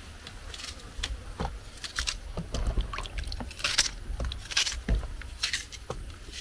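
Kitchen knife cutting through a red onion held in the hand: a run of short, sharp cuts, about two a second and unevenly spaced, over a low steady rumble.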